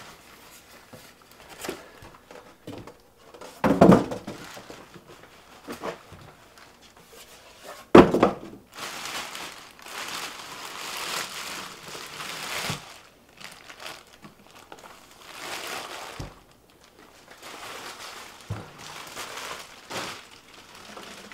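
Styrofoam packing being pulled away and a plastic bag crinkling as it is worked off a portable generator, with two heavy thunks about four and eight seconds in.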